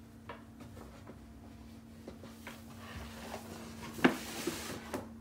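Handling of a cardboard box full of plastic sample bags of dry cat food: scattered light clicks and rustles, then a sharper knock and about a second of crinkling plastic near the end.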